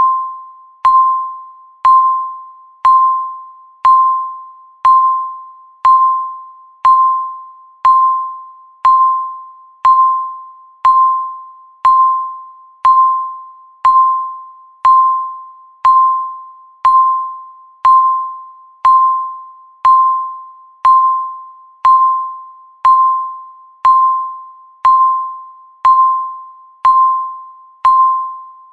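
Countdown timer beeping once a second: each beep is a single mid-pitched electronic tone with a sharp start that fades away before the next one.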